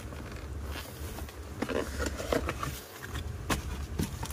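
A cardboard clipper box being opened by hand and the thin white wrapping sheet inside being rustled and pulled back, with irregular crinkles and light knocks over a steady low hum.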